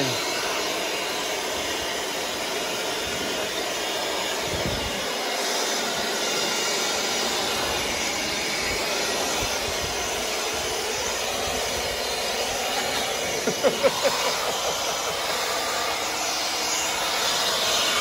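Milwaukee M18 cordless leaf blower running steadily, its air blast rushing against the coil and cabinet as it blows dirt and debris out of an outdoor AC condensing unit.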